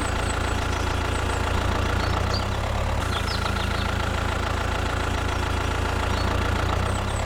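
An engine idling steadily: an even, unchanging low drone.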